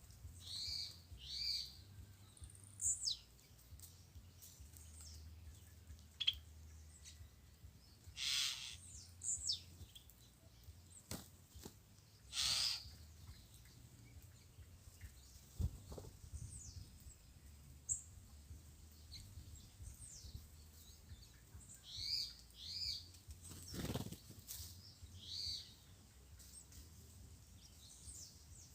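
Red-cowled cardinals and other songbirds giving short chirping calls in scattered bouts. Two brief whooshing flutters, about eight and twelve seconds in, are the loudest sounds.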